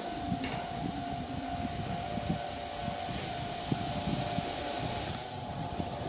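Nankai Koya Line electric train running at the station: an uneven low rumble with a steady whine held over it.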